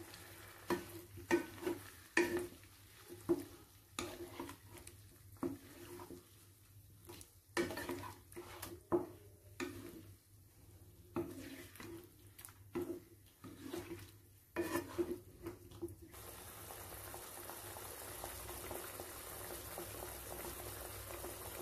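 Wooden spatula stirring chicken and yogurt in a non-stick kadai, knocking and scraping against the pan at an irregular pace of about one or two strokes a second. About sixteen seconds in the stirring stops, leaving a soft, steady sizzle of the dish cooking in the pan.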